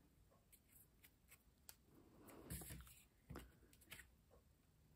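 Near silence with faint handling sounds of paper and a glue stick: a soft paper rustle about two seconds in and a few light taps soon after.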